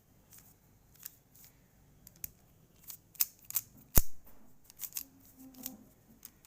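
Rubik's cube being turned by hand, its plastic layers snapping round in irregular clicks, with one sharp, louder click about four seconds in.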